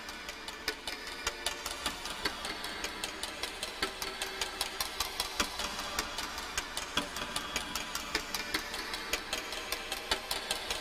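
Quiet intro of an electronic song: a dry clicking rhythm, about four ticks a second, over faint synth tones.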